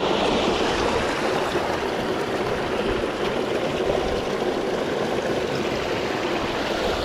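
Mountain stream running steadily, a constant rushing of water.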